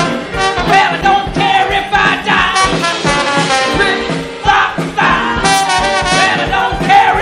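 Live band music with a horn section: saxophone and trombone playing over a steady beat.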